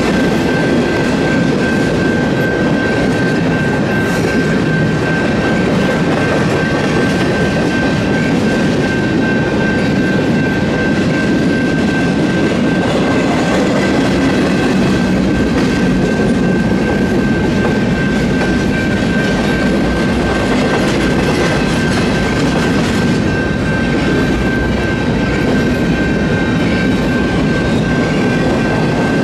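Empty BNSF intermodal freight cars rolling steadily through a grade crossing, with wheels clicking over rail joints and cars rattling. Over it, the crossing's electronic warning bell rings as a steady high tone.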